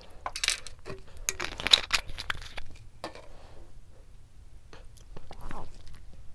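Rustling and crinkling handling noises with a few sharp clicks, in irregular bursts that are busiest in the first three seconds and come back briefly near the end.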